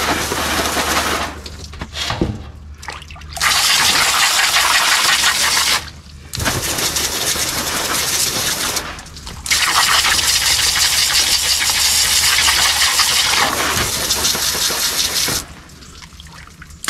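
Running water spraying onto fish fillets as they are rinsed in a fish-frying basket, a steady hiss that stops and starts again several times.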